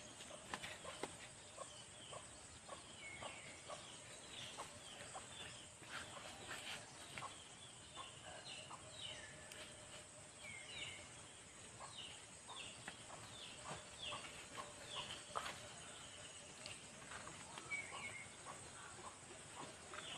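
Faint chickens calling: many short, high, falling chirps and some clucks, with scattered light clicks.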